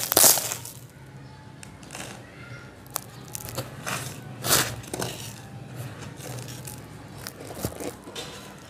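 Molded blocks of dry yellow sand crumbled by hand: a loud crunch and loose sand pouring down at the very start, then quieter, scattered crunches and rustles as the sand blocks are handled.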